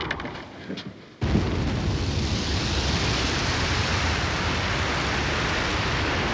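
Storm at sea: wind and heavy waves, a loud steady rush that cuts in suddenly about a second in after a quiet moment.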